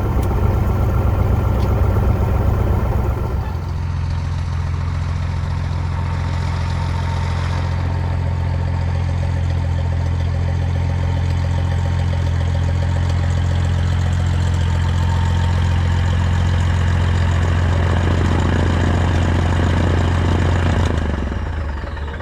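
An engine running steadily at low speed. It steps down in pitch about three and a half seconds in, then winds down and stops near the end.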